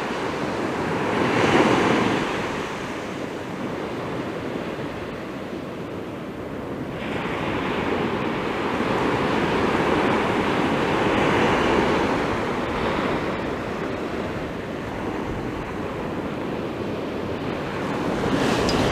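North Sea surf: waves breaking and washing up the shore, swelling and easing over several seconds, with the loudest wash about two seconds in.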